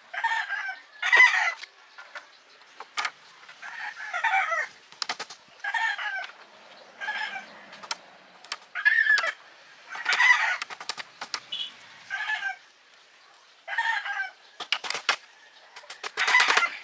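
Chickens clucking and calling over and over, each call about half a second long. Between the calls come sharp hammer taps, singly and in quick runs, from nailing bamboo slats onto a wooden frame; the loudest run of taps comes near the end.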